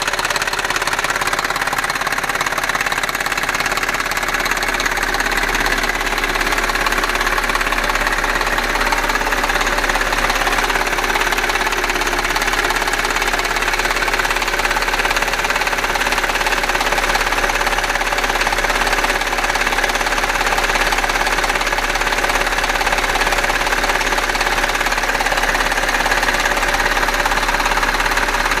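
Audi A6 4F 3.2 FSI V6 engine running steadily with a fast, continuous clattering, ticking noise, the 'Klackern' and 'Nageln' the owner is investigating as an abnormal engine noise.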